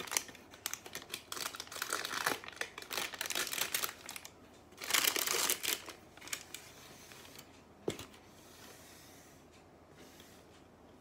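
Baking paper crinkling and rustling as it is peeled from around a baked loaf, loudest about five seconds in. A single knock comes near the eighth second, and the rustling fades after it.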